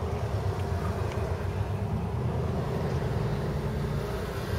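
Car driving on a highway, heard from inside with the side window open: a steady low road-and-wind rumble.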